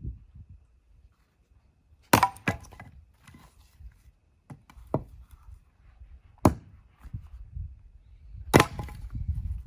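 Axe striking firewood being split: a handful of sharp, separate chops, the loudest about two seconds in and near the end, with lighter knocks between.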